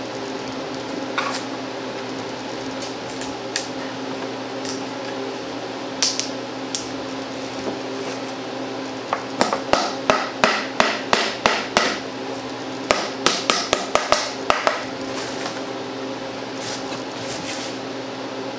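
A hand tool tapping and clicking on the small metal hinge of an antique Singer treadle sewing machine cabinet panel as the panel is unhinged. A few scattered clicks come first, then two runs of quick sharp taps, about five a second, each lasting two to three seconds, over a steady background hum.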